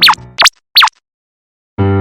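Cartoon sound effect: quick falling zips in pitch, three in the first second, over children's background music that cuts off about half a second in. After a short silence, new music starts near the end.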